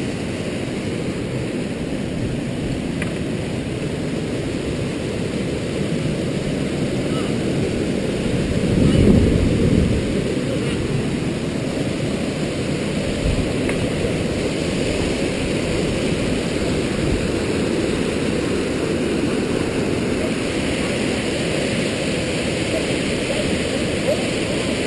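A fast mountain stream rushing and splashing down a rocky white-water cascade, a steady loud noise that swells briefly louder around nine seconds in.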